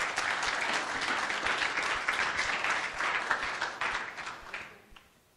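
Audience applauding: a dense patter of many hands clapping that thins and dies away about four and a half seconds in.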